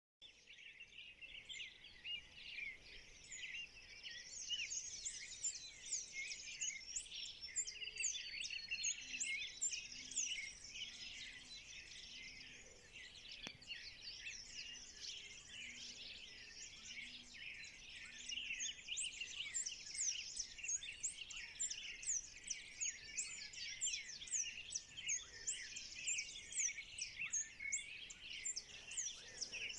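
Dawn chorus of many birds calling at once: a dense, continuous mass of high chirps and short whistled sweeps. A faint, low, repeated call sits under it in the middle.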